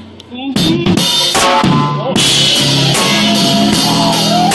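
Live band music with a drum kit: after a short lull, a run of loud drum hits comes in about half a second in, and the full band with drums and pitched instruments is playing from about two seconds in.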